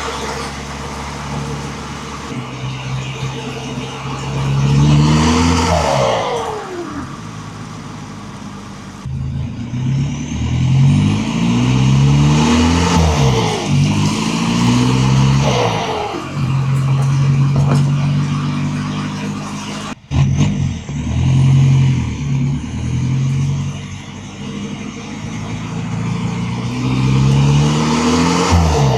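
A 1.9 TDI four-cylinder turbodiesel engine revving up and down several times, its pitch climbing and then holding. After several of the climbs a whistle falls away as the revs drop.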